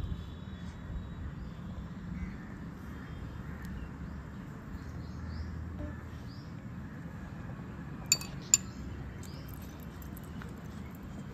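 A metal spoon clinking twice against a small glass bowl: two sharp, ringing clinks about half a second apart, near the end. Steady low background noise underneath.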